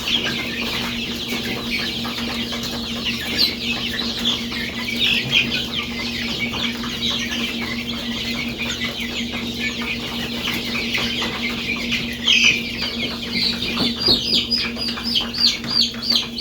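A group of young chicks peeping constantly, many short high cheeps overlapping. From about 14 seconds in, one chick peeps louder in a regular run, about two or three peeps a second. A steady low hum runs underneath.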